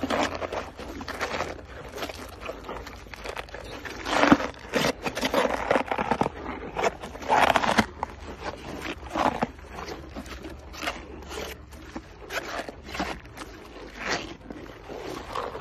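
Hippopotamus chewing cabbage and other vegetables: irregular wet crunching and scraping bites, loudest about four seconds in and again around seven and a half seconds.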